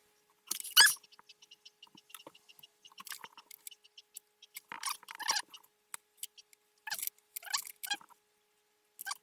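Plastic parts of a wind-up triceratops toy kit being handled and fitted together: a sharp scrape about half a second in, then a run of quick, evenly spaced clicks, followed by scattered plastic scrapes and rattles.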